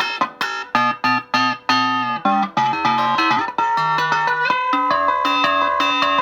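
Electric guitar through a DOD Gonkulator ring modulator and a Roland JC-20 amp, playing robotic-sounding chicken-picking. Quick, clipped, staccato notes give way about four and a half seconds in to sustained notes that ring on.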